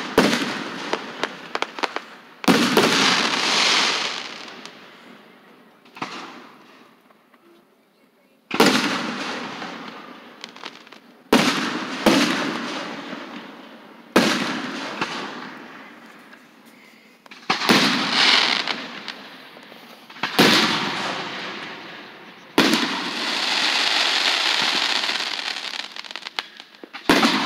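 Aerial fireworks shells bursting one after another, about a dozen sharp bangs, each followed by a noisy crackling tail that dies away over a few seconds.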